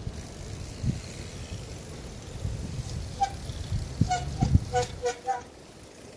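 Trials bike rim brakes giving a run of short squeals as the rider hops and balances on the locked brakes, with a few low thuds of the tyres landing on the paving.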